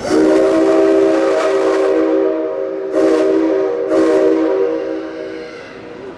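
Whistle of the C57 135 steam locomotive blowing a loud chord of several notes at once. It starts abruptly, surges again sharply about three and four seconds in, then fades away.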